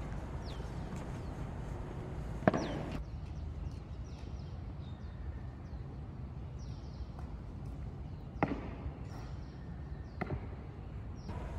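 Boots stamping on a paved parade ground in foot drill: a few sharp single stamps, the loudest about two and a half seconds in and others around eight and a half and ten seconds in, over steady outdoor background noise with faint short high chirps.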